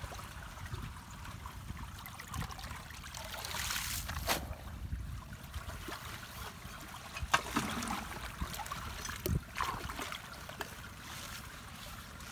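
Muddy ditch water trickling and flowing through a culvert as it is cleared of trash. A few short, sharp noises come from debris being handled, the loudest about four seconds in, over a low wind rumble on the microphone.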